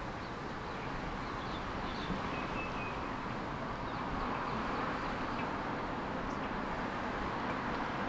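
Street ambience: a steady hum of traffic on the road alongside, growing slightly louder, with a few faint bird chirps about two seconds in.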